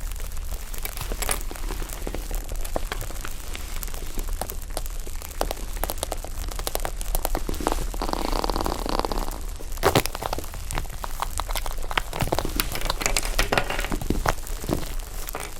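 Slime being pressed and folded by hand so that trapped air pops, giving a dense run of small crackles and pops, with a louder sharp pop about ten seconds in.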